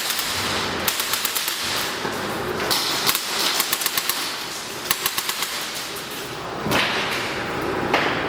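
Airsoft guns firing in rapid full-auto bursts of sharp clicks, several strings of shots a second or two long, with two louder cracks near the end.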